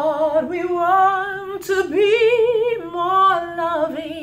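A woman singing unaccompanied, holding a phrase of long notes with a wide vibrato and gliding between them, climbing to the highest note about two seconds in and settling back down.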